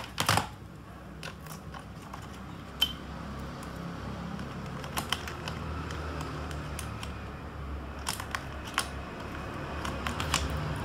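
Scattered light clicks and taps of a hand handling the wiring and plastic rear casing of an opened LED TV, over a steady low background rumble.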